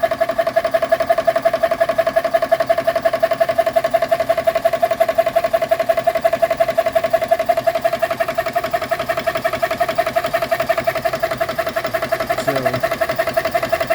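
GX Pump CS2 12-volt high-pressure PCP air compressor running hot under load after about 45 minutes of filling. It makes a steady high hum over rapid, even pulsing from its piston.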